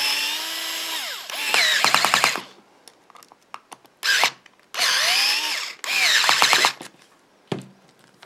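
Small cordless electric screwdriver driving the terminal screws of a plug end tight in several short runs, its motor pitch dipping and wavering under load as each screw seats. Some runs end in rapid clicking.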